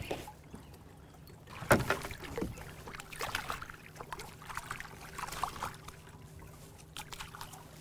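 Small striped bass splashing at the water's surface beside a kayak as it is reeled in and lifted out by hand, in a run of short, irregular splashes. A sharp knock comes about two seconds in.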